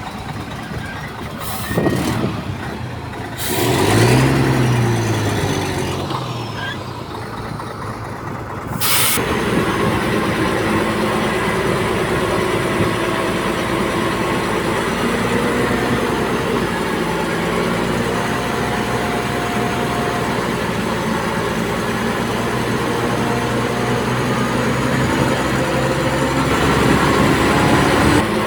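Heavy diesel engines of a dump truck and a bulldozer at work, heard across several abrupt cuts. An engine revs up and back down about four seconds in. From about nine seconds a steady engine drone runs on, shifting a little in pitch.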